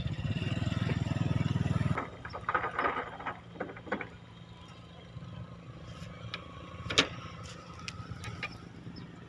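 Diesel engines of an excavator and a concrete mixer truck at work, with a loud low rumble for the first two seconds, then quieter scattered clattering and a sharp click about seven seconds in.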